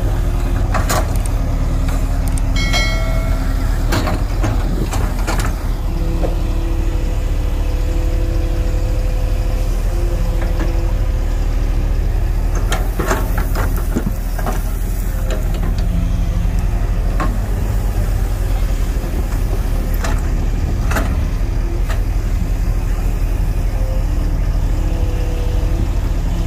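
JCB 140 tracked excavator's diesel engine running steadily under digging load, with tones shifting in pitch as the hydraulics work. A few sharp knocks and clanks come as the bucket scrapes into the soil and stones.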